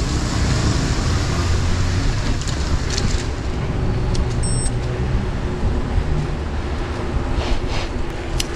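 Wind rushing over the microphone of a bicycle camera while riding, with steady street traffic noise underneath and a few short clicks.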